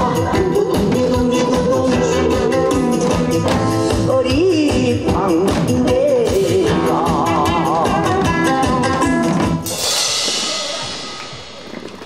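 A Korean popular song with a singer, played along to by a janggu drum and cymbal ensemble beating in time. About ten seconds in, the music ends on a cymbal crash that rings and fades away.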